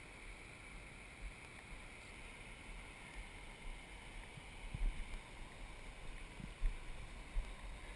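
Faint steady rush of water from a fast spring run, with a few soft thumps of footsteps on grass and stones.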